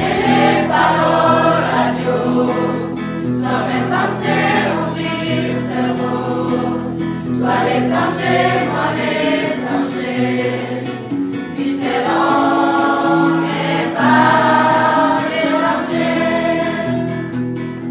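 A group of teenage voices singing a song together as a chorus, over steady held accompanying chords; it fades out at the very end.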